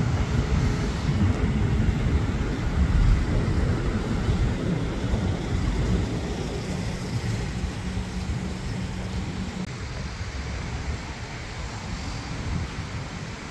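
Low rumble of a jet airliner flying high overhead, slowly fading.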